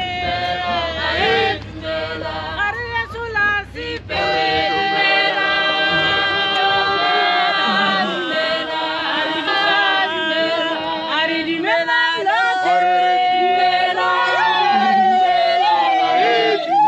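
Several voices singing together unaccompanied, holding long notes that slide between pitches. A low rumble underneath stops about four seconds in.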